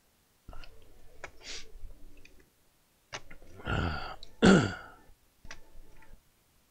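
Light clicks and rattles of a soldering station's plastic case being handled, then a man coughs twice about four seconds in, the second cough the loudest.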